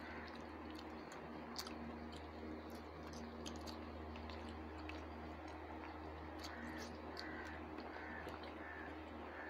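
Quiet hand-eating sounds: fingers mixing rice on plates, with chewing and small clicks, over a steady low hum. A bird calls repeatedly in the last few seconds.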